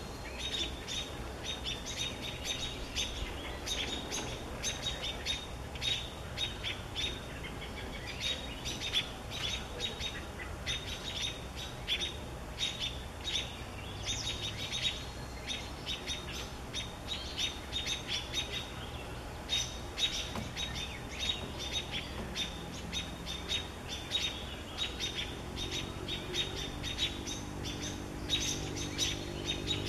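American robins giving rapid, repeated sharp alarm calls, mobbing a perched great horned owl to drive it from their nest area. A low drone comes in near the end.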